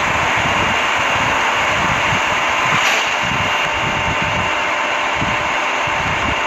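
LRT Line 2 train running, a steady rush and rumble of wheels and motors with a faint steady whine, heard from inside the car.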